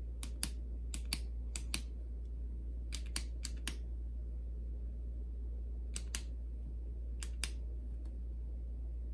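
Click-pen applicator of a Grande Lips Hydrating Lip Plumper being clicked again and again to pump product up to the brush tip: sharp plastic clicks, mostly in quick pairs, in a few bursts with pauses between. The pen takes many clicks before any product comes out. A steady low hum runs underneath.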